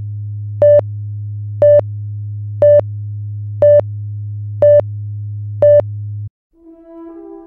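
Film countdown leader sound effect: a steady low hum with a short, higher beep once a second, six beeps in all. The hum cuts off suddenly about six seconds in, and music with held notes fades in near the end.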